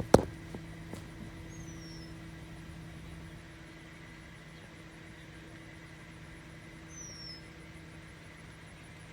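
A sharp knock just at the start, then a faint steady hum. Two brief high chirps fall in pitch, one about a second and a half in and one about seven seconds in.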